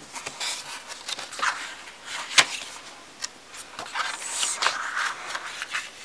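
Paper pages of a thin paperback picture book being turned and pressed flat by hand, a run of rustling, rubbing and scraping with a sharper click about two and a half seconds in.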